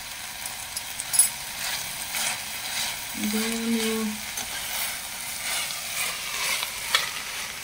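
Sliced ivy gourd frying in coconut oil in a stainless steel pan, sizzling steadily while a steel spoon stirs and scrapes through it. Sharp clinks of the spoon against the pan come through, the loudest about a second in.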